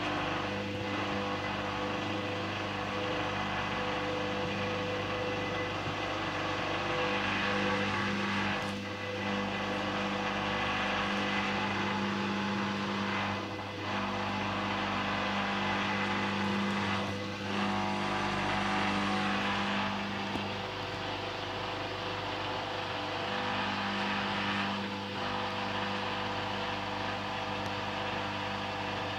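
Hoover Dynamic Rapid 30 washing machine running, with a steady motor hum and whir. The sound dips briefly three or four times.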